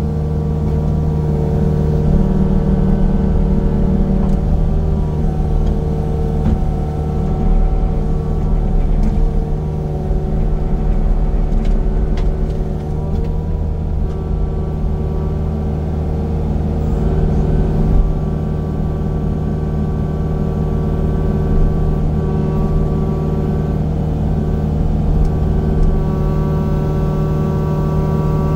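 The engine of a land-clearing machine running steadily: an even drone at constant pitch that swells a little in level now and then. There is a brief sharp knock about eighteen seconds in.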